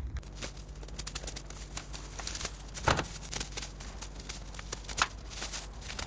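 Overgrown grass and runners being torn up and scraped away: irregular rustling and crackling, with two sharper knocks about three and five seconds in, over a low steady hum.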